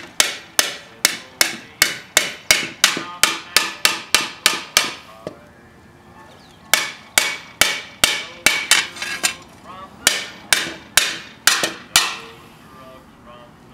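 Ball-peen hammer striking a hot steel disc held in tongs on a wooden stump, peening dimples into the sunflower's seed centre. The blows come steadily, about three a second, each with a short metallic ring. They pause for about a second and a half midway, then a second run of blows follows.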